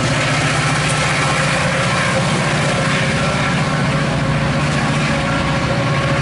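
Metra EMD F40PH-3 diesel locomotive working under power as it pushes a train of bilevel commuter coaches away, a steady, rhythmic diesel engine drone over wheel and rail noise.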